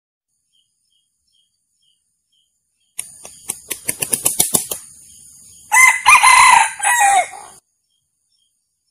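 Male red junglefowl beating its wings in a run of about a dozen claps that speed up, then crowing once, for about two seconds.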